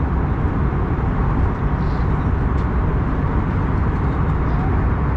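Steady cabin noise of an Airbus A321neo at cruise: an even rush of airflow and engine drone, heaviest in the low range.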